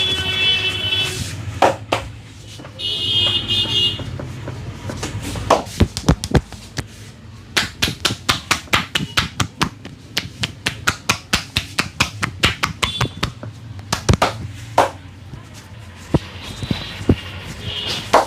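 A barber's hands tapping and slapping on a customer's head during a head massage. A fast, even run of strikes at about four to five a second goes on for several seconds in the middle, with single slaps before and after. A brief high tone sounds near the start and again near the end.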